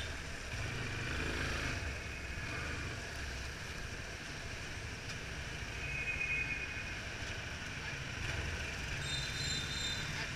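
Yamaha Fazer 250's single-cylinder engine running at low speed through slow traffic, under a steady hiss of tyres on wet road. Two short faint high tones sound, one about six seconds in and one near the end.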